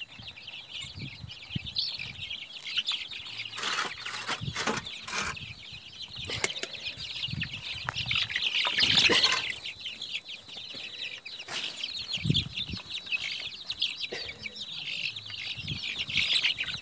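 A flock of young chickens peeping continuously while they feed, with a few short bursts of wing flapping. The loudest burst comes about nine seconds in.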